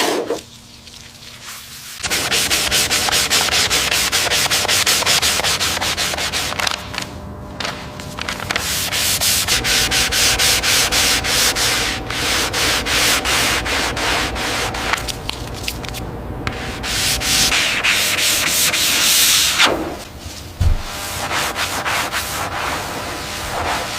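Sanding: quick repeated abrasive rubbing strokes on a hard surface, in several stretches with brief breaks between them.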